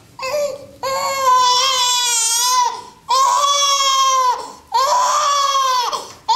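A newborn baby crying: a string of long wails, each one to two seconds, with short catches of breath between them.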